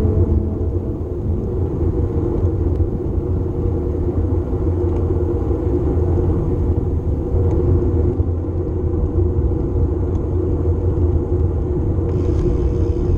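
Steady low rumble of a road bike ride: wind buffeting the microphone and tyre noise on the pavement.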